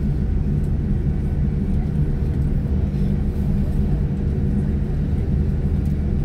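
Steady low rumble inside the cabin of a Boeing 787-9 rolling out on the runway after touchdown, with its ground spoilers raised as it slows down.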